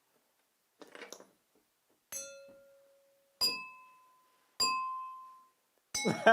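Glassware tapped three times, each tap ringing briefly with a clear pitch; the first ring is lower and the next two higher and alike, after a faint rustle of handling.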